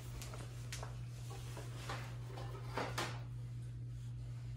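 A few faint knocks and clicks of kitchenware being handled, the clearest pair about three seconds in, over a steady low hum.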